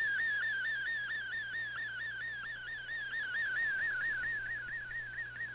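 Shortwave MFSK picture transmission received on an Icom IC-R8600 and decoded in fldigi: a single warbling tone whose pitch dips and returns about four to five times a second as the colour image lines come through. A faint steady hum lies underneath.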